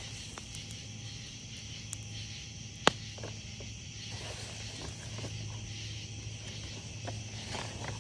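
Night insects such as crickets chirring steadily while a wood campfire crackles, with one sharp, loud pop from the fire about three seconds in.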